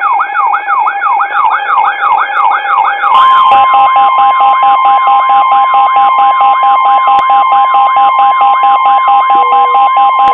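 Several weather alert radios sounding their alarms at once for a severe thunderstorm warning. A siren-like sweep repeats about three times a second over fast beeping, and about three seconds in they are joined by the steady NOAA Weather Radio warning alarm tone.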